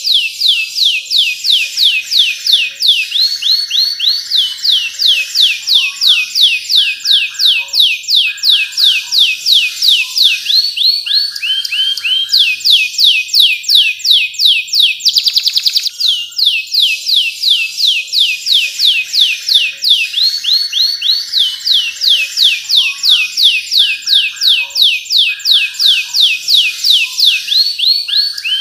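Domestic canary in full, continuous song: fast trills of high, falling whistled notes, several a second, alternating with lower rolling phrases. The same stretch of song starts over about halfway through.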